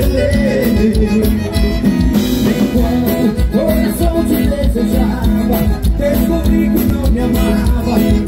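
Live band music: a voice singing over the band, with a steady beat.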